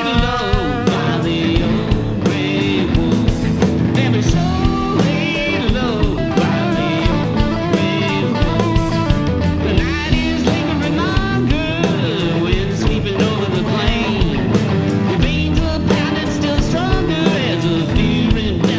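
Rock band playing live: an electric lead guitar with bent, wavering notes over electric bass and a drum kit.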